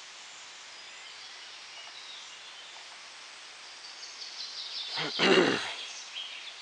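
Quiet woodland background with faint bird chirps. About five seconds in, a brief loud sound that falls in pitch over about half a second.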